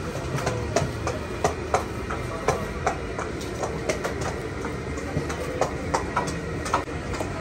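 Busy street ambience: a steady low rumble of traffic with frequent short, sharp clicks and clinks scattered through it, about two a second.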